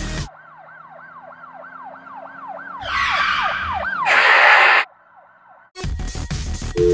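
Dubbed sound effects: an emergency-vehicle siren sounding in rapid, repeated falling sweeps over a low steady hum, then a rush of noise about three seconds in that builds to a loud crash lasting under a second. After a short lull, music comes back in near the end.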